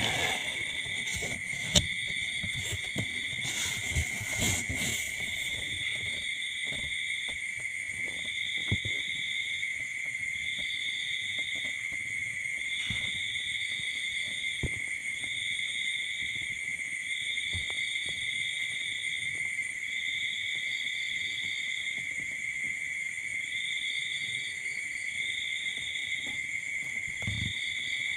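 Insects trilling: one steady high-pitched trill runs throughout, and a second, higher trill pulses on for about a second every second or two. A few soft clicks and rustles come in the first few seconds.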